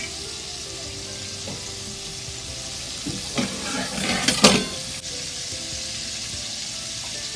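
Battered chicken deep-frying in a pot of hot oil, a steady sizzle, with a brief clatter of knocks about three and a half to four and a half seconds in.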